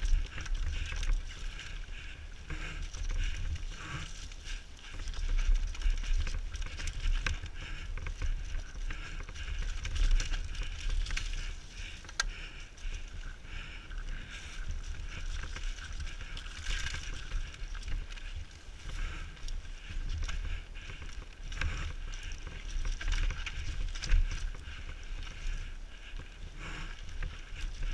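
Downhill mountain bike running fast over a rocky, rutted dirt trail: wind buffeting the helmet-mounted microphone with continual rattling and knocks from the bike and tyres over rocks and roots.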